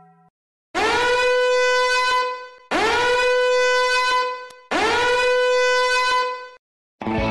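Three blasts on a horn-like wind instrument, each sliding quickly up in pitch into a held, bright note of about a second and a half, spaced about two seconds apart.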